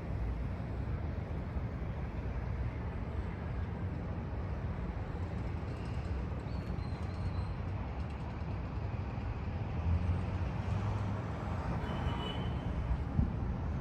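Steady low rumble of outdoor city background noise, with no single clear event.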